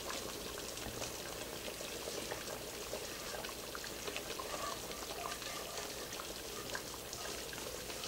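Broth pouring and dribbling from a skillet into a stockpot of simmering gumbo, with light scrapes and taps of a spatula against the pan.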